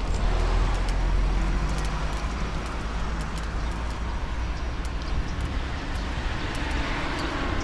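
Road traffic noise: cars going past with a low engine rumble, heaviest in the first few seconds and then easing.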